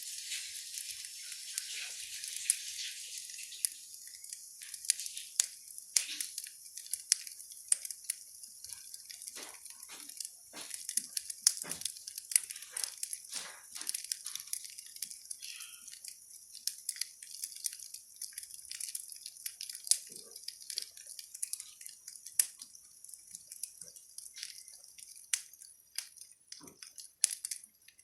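Wood fire crackling in a fireplace: irregular sharp pops and snaps over a high hiss that is strong for the first few seconds, then thins.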